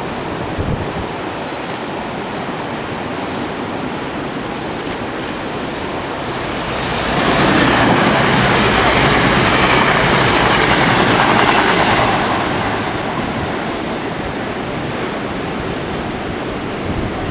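A diesel passenger train passing close at speed: its rushing noise swells about six and a half seconds in, stays loud for some five seconds and fades by about thirteen seconds. Under it throughout, a steady rush of sea surf and wind on the microphone.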